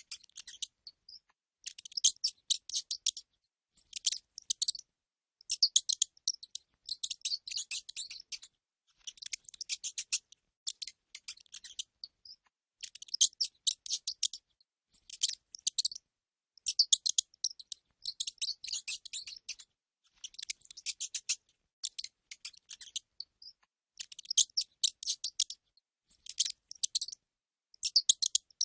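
Rodent squeaking: rapid, high-pitched chittering squeaks in short bursts of about half a second to a second and a half, with brief silences between.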